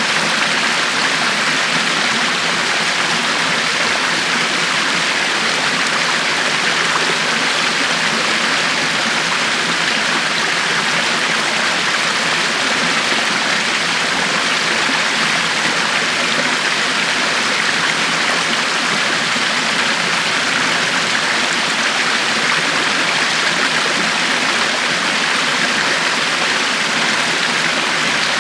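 A river flowing: a steady rush of running water, even throughout, with no single splashes standing out.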